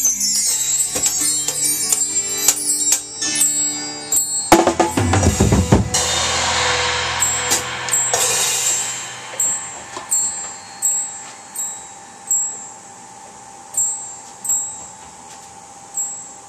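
Drum kit played along with a recorded rock song through its final bars. About four and a half seconds in, the song ends on heavy bass drum and tom hits with a crash cymbal. The cymbals then ring away over a few seconds, followed by a string of short, sharp clicks.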